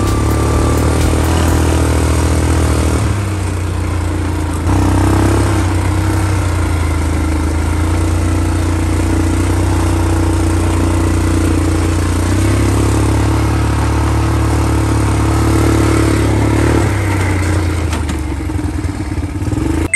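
Off-road buggy engine running under way on a dirt trail, a steady drone whose pitch and loudness step up and down a few times as the throttle changes.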